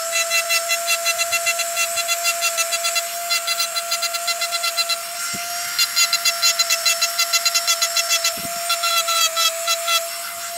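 Handheld electric engraving tool's motor whining at a steady high pitch, with a fast run of scratchy ticks as its fine bit cuts lines into stone; the ticking pauses briefly about halfway through.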